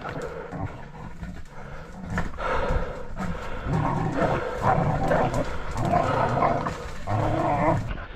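Pig-hunting bay dogs barking repeatedly, holding a wild boar bailed up.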